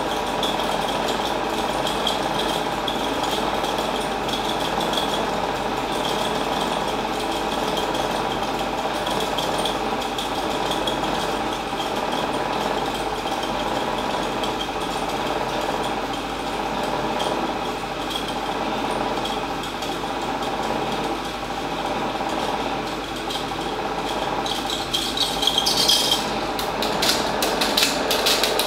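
Chinon Sound 8500 Super 8 projector running, its electronically governed DC motor and film mechanism making a steady mechanical whir. Near the end a rapid clicking clatter sets in and then begins to fade as the machine is stopped.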